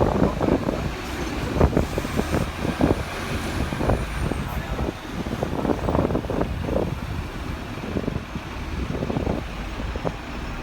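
Hong Kong double-decker tram running along a street, heard from aboard: steady running noise with irregular louder surges, amid road traffic.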